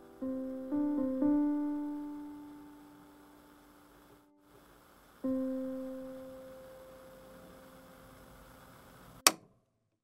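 Piano notes playing back from a music-production session: three notes struck in quick succession, ringing and slowly fading, then another chord about five seconds in that dies away. A sharp click just past nine seconds, after which the sound cuts off suddenly.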